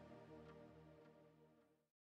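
Background music with held tones and a soft, even beat, fading out and going silent near the end.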